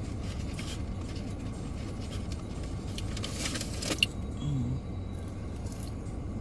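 Steady low hum of a car cabin, with light rustling and handling noises and one sharp click about four seconds in.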